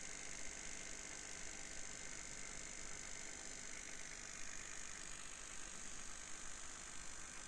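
Homemade electromagnetic oscillator, two copper coils flapping a pair of paper wings, running with a faint steady whir and rattle over a constant hiss.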